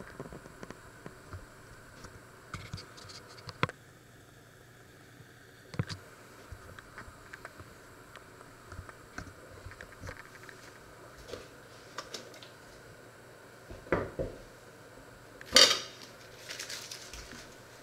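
Kitchen utensils and dishes handled on a wooden worktop: scattered light clicks and knocks, a pair of louder knocks, then one sharp metal clank near the end. A brief crinkling rustle follows, as butter in its foil wrapper is handled.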